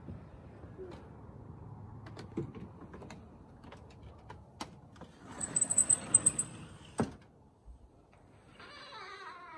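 A hinged glass patio door being handled as someone comes in from the deck. Scattered clicks and taps come first, then a rattling, scraping stretch about five seconds in, and a single sharp knock about seven seconds in as the door shuts.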